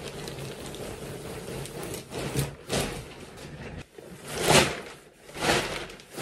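Clear plastic garment bag and a nylon puffer jacket rustling as the jacket is pulled out of the bag, in a few swishing rustles that start about two seconds in, the loudest about two-thirds of the way through.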